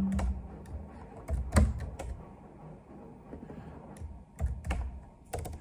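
Typing on a computer keyboard: irregular key clicks in short runs with pauses between.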